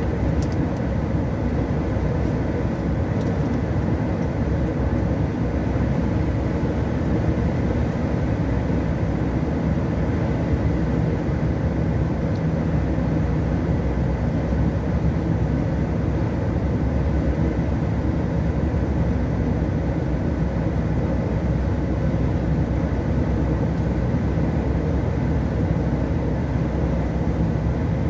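Steady road and engine noise heard inside a vehicle's cabin while it drives at motorway speed.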